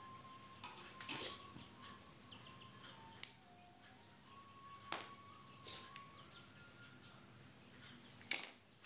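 A series of sharp clicks and knocks, about five, spaced irregularly, the loudest about three seconds in and near the end, over a faint thin tone that wavers up and down in pitch.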